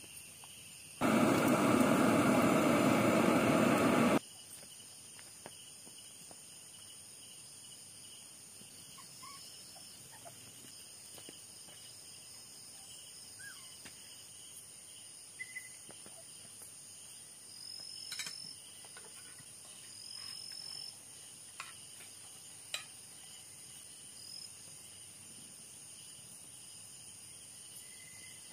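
A steady chorus of night insects, with a few short chirps and faint knocks and clatter. About a second in, a loud, even rushing hiss lasts about three seconds and cuts off suddenly.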